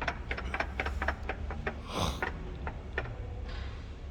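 A run of irregular sharp clicks and light knocks, with a short hiss about two seconds in, over a steady low hum.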